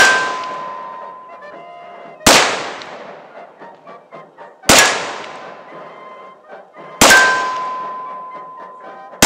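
Pietta 1858 Remington 'The Ace' snub-nose cap-and-ball revolver fired with black-powder loads of round balls: five shots about two and a half seconds apart, the first at the very start and the last at the very end, each trailing off over a second or more.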